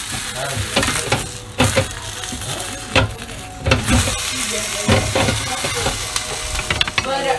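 Whole fish sizzling in the hot grill pan of a Ninja Foodi XL grill while wooden spatulas scrape and knock against the pan, turning the fish over partway through cooking.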